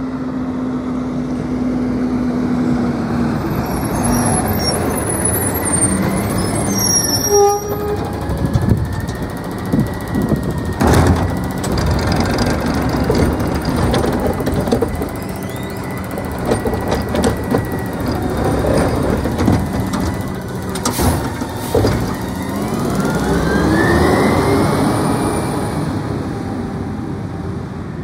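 Automated side-loader garbage truck working at the curb: diesel engine running under the hydraulic arm, with sharp clanks as the cart is dumped into the hopper. Near the end the engine rises in pitch as the truck pulls away.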